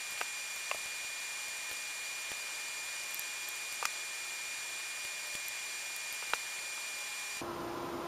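Steady hiss with a faint, steady high-pitched whine, and a few soft clicks, the clearest about four seconds in and again after six seconds.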